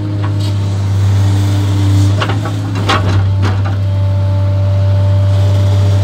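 JCB JS 235 HD tracked excavator's diesel engine running steadily under working load, heard from inside the cab, with a steady whine over it. A few sharp knocks come between about two and three and a half seconds in.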